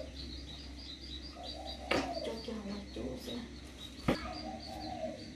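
A small bird chirping fast and evenly, about four high chirps a second, without a break. Two sharp knocks about two seconds apart stand out above it.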